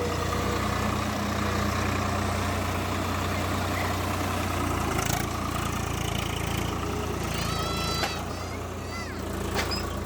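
Tractor engine running steadily with a low hum, with short high chirps near the end.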